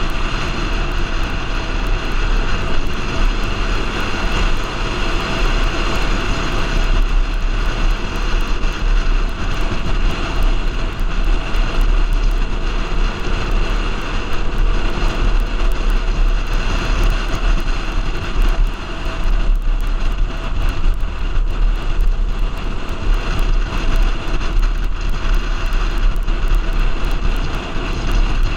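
Motorcycle riding at a steady cruising speed: loud wind rush over the bike-mounted camera with the engine running steadily underneath.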